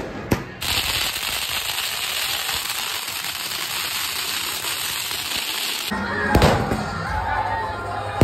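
Two sharp firecracker bangs, then a ground firework fountain hissing steadily as it sprays sparks for about five seconds. The hiss cuts off suddenly to music with a loud bang or two.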